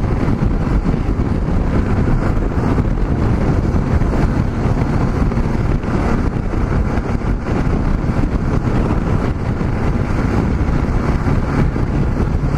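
Wind buffeting the microphone over the steady drone of a Yamaha XT660Z Ténéré's single-cylinder engine cruising at highway speed.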